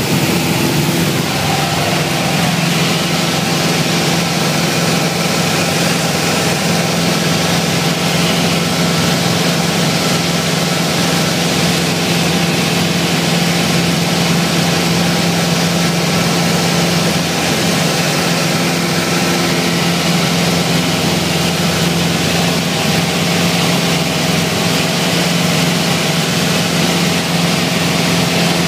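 Piper Warrior's four-cylinder Lycoming engine and propeller droning steadily in flight, heard inside the cabin, with a constant hiss of airflow over the airframe.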